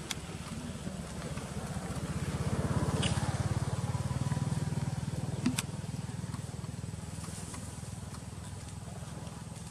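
A motorcycle engine running, growing louder over the first three seconds and then slowly fading away, as it passes. Two short sharp clicks are heard, about three and five and a half seconds in.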